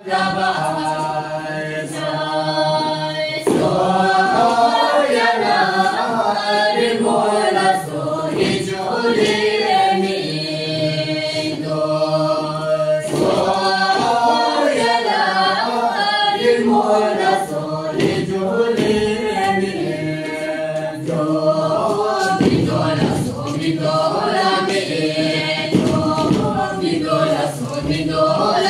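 A group of men and women singing a Bhutanese circle-dance song together, unaccompanied, in long flowing phrases.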